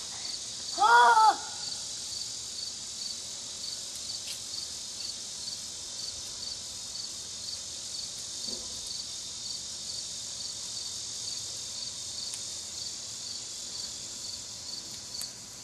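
Crickets chirping steadily, about three chirps a second, over an even high hiss. A child's short high-pitched call about a second in.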